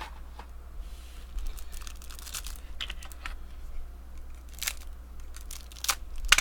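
Plastic wrapper of a baseball card rack pack crinkling and tearing as the cards are pulled out, in scattered rustles with a few sharper crackles near the end.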